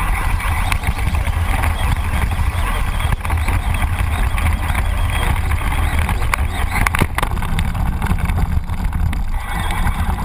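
Radio-controlled short course truck heard through its onboard camera as it drives over grass and sand: a loud, steady rumble and rattle with hiss above it.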